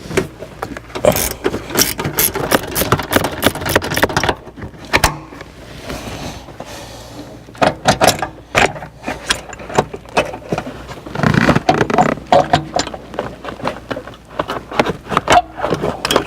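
Irregular clicks, knocks and rattles of plastic trim and metal as a seatbelt pretensioner is worked loose and pulled out of a car's door pillar, with a quieter stretch in the middle.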